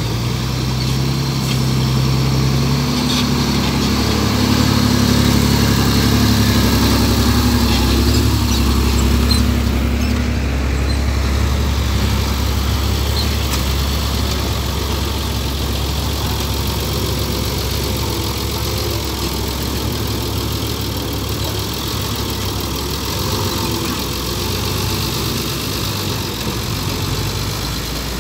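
Diesel dump truck engine running under load through loose soil. The note climbs and is loudest a few seconds in, then settles to a steadier run.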